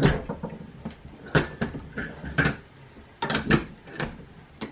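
A Vevor button press being worked by hand, giving a series of sharp metal clunks and clicks: about eight knocks spread over the few seconds. The press has failed to pick up the badge back on this stroke.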